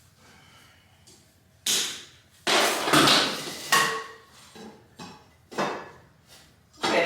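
Wooden boards and tools being handled and knocked together: a few sharp knocks, with a longer clattering scrape about two and a half seconds in.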